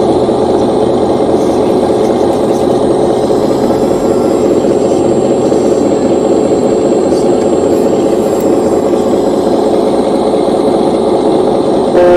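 Scale RC hydraulic excavator (long-reach CAT model) running its hydraulic pump: a steady mechanical hum with a held pitch as the boom swings and lifts a loaded bucket. Near the end a brief, louder tone cuts in.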